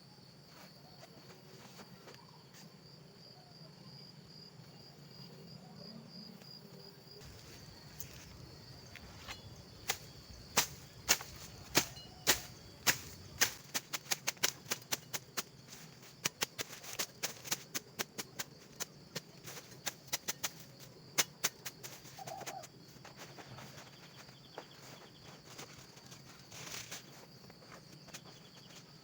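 A run of loud, sharp knocks, irregular at one or two a second, starts about a third of the way in and stops a little past the middle. Under it is a steady high insect drone.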